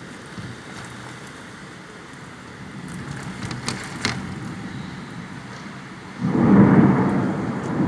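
Rain and wind of a storm, a steady hiss with scattered sharp ticks. About six seconds in, a sudden loud rumble surges up and stays strong.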